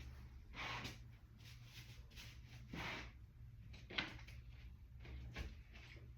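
A Pomeranian's noisy breaths, four of them about a second or two apart; the one about four seconds in starts sharply.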